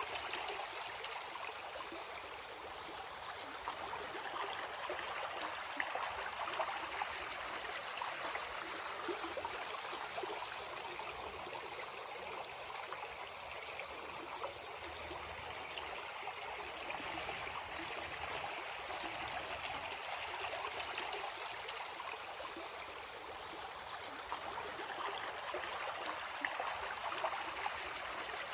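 Creek water running steadily over rocks, a continuous rushing with small gurgles and splashes.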